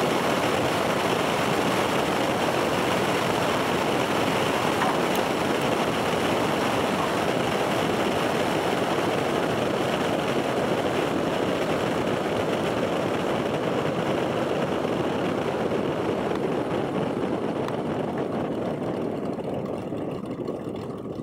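Cessna 310 twin-engine aircraft rolling down the runway after landing, heard from a camera mounted under the fuselage: a steady rush of airflow and engine noise that fades over the last few seconds as the plane slows.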